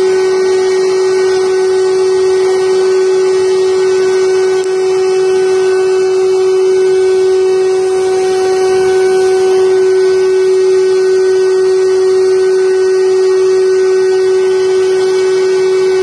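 Five-axis CNC wood carving machine's router spindle running with a steady whine, with the hiss of the bit cutting a wooden furniture leg turned on the rotary axis.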